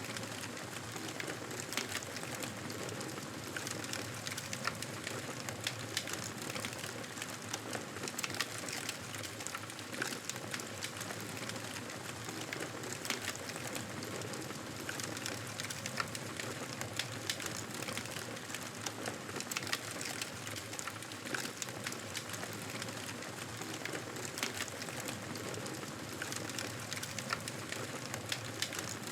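Wood fire crackling in a fireplace: a steady hiss with frequent small, sharp pops and snaps.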